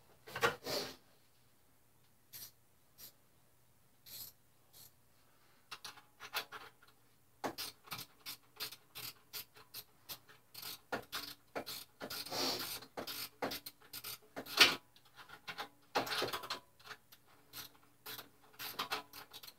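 Wrench working on the motorcycle's exhaust mounting bolts: a few scattered clicks at first, then from about six seconds in irregular runs of quick metallic clicks with a few longer scraping rasps.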